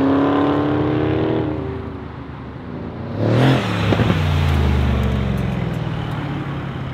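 Dodge Charger SRT Hellcat's supercharged V8 pulling away under acceleration and fading into the distance. A few seconds in, a Mercedes-AMG C63's twin-turbo V8 takes over: a loud burst of revs with a sharp pop, then a deeper engine note that fades as the car drives off.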